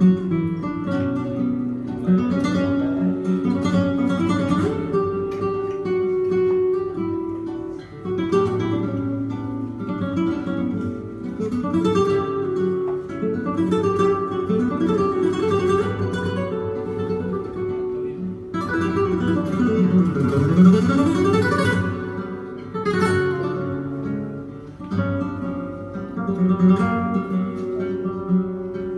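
Two flamenco guitars playing together live: picked melodic lines over chords, with a stretch of dense strummed chords about two-thirds of the way through.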